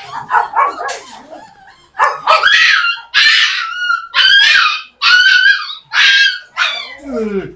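Puppy crying: a quick run of whines, then from about two seconds in a string of loud, high-pitched yelping cries about one a second, ending in a howl that falls in pitch.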